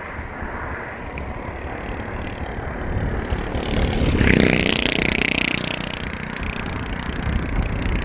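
A moving vehicle's steady road and engine noise mixed with wind rush on the microphone, swelling louder about four seconds in with a bending pitch before settling back.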